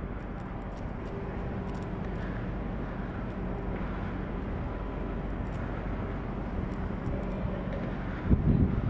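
Steady low mechanical hum of the city at night with a faint held tone, like a distant engine or machinery. Wind starts buffeting the microphone near the end.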